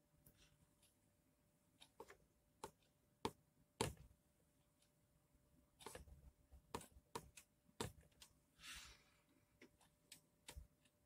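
Faint, sharp clicks and taps at irregular intervals over near silence, with one short soft hiss about three-quarters of the way through.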